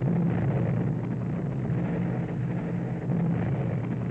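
Tornado's 27 mm Mauser revolver cannon firing long, rapid bursts in a ground firing test, the shots running together into one loud, continuous rattle.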